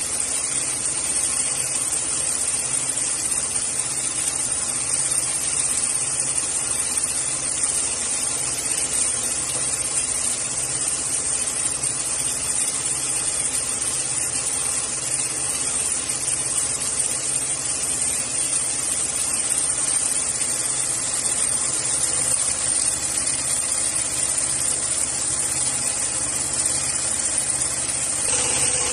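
Industrial programmable pattern sewing machine running steadily as it stitches thick polyester lifting-sling webbing: an even mechanical hum with a steady high hiss.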